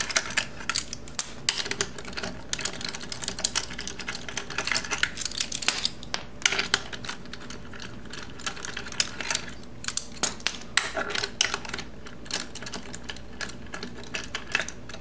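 Steel wheel bolts being spun out by hand from the rear wheel hub of a BMW K1200RS, giving an irregular run of light metallic clicks and clinks with a few brief high rings.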